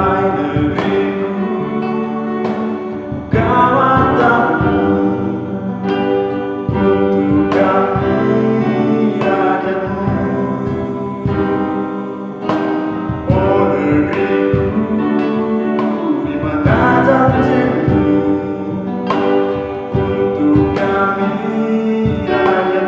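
A man singing a slow song to his own strummed classical acoustic guitar.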